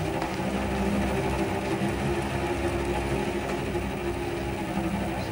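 Background music from the drama's score: low held chords that drone steadily, changing chord right at the start.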